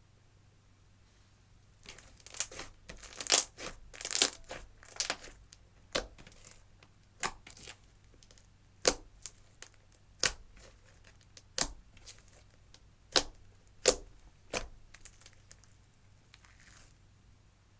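Clear slime worked by hand: a run of crackling about two seconds in, then single sharp pops roughly every second and a half, fading out near the end.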